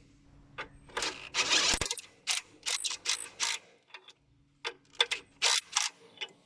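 Cordless DeWalt DCF887 impact driver, converted to a 3/8-inch impact wrench, hammering in one burst of about a second, then in a string of short trigger blips.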